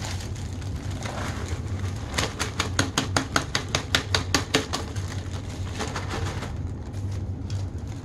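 Vacuumed popcorn pieces rattling and clicking as they are poured and shaken out of a clear plastic vacuum dust cup into a plastic zipper bag. A quick run of clicks, several a second, starts about two seconds in and thins out about halfway through.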